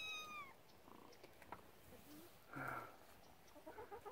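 A kitten meowing: one high, thin meow that falls away at its end near the start, then only faint sounds.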